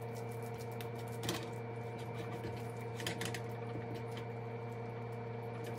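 Steady hum with several fixed tones, and a few faint soft pats and squishes of hands pressing raw ground-meat mixture into a loaf.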